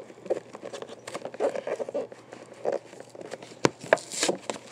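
Plastic blister packaging of a toy truck pack being pried and torn open by hand: irregular crinkling and crackling, with two sharp snaps a little over three and a half seconds in.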